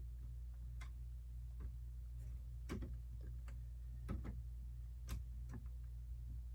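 Plastic Lego pieces being handled and pressed together, giving light, irregular clicks and taps, over a steady low hum.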